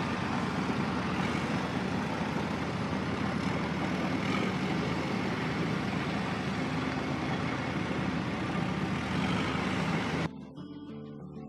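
Heavy vehicle engine running steadily, laid over the toy play as a sound effect; it cuts off suddenly near the end.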